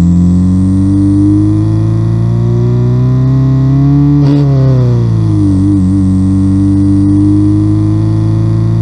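Homemade electronic engine-sound synthesizer imitating the exhaust note of a Subaru EJ20 flat-four with equal-length exhaust. A buzzing engine-like note rises slowly in pitch as if revving, peaks about four seconds in and drops over the next second. It wobbles briefly, then holds and climbs gently again.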